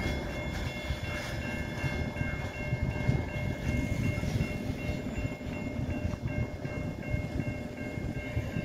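Freight train cars rolling away on the rails: a steady low rumble from the wheels, with faint high-pitched ringing tones held over it.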